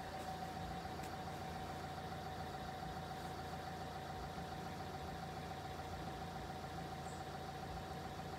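Level crossing warning alarm sounding one steady, unbroken tone at its reduced night-mode volume, with a low engine hum beneath it.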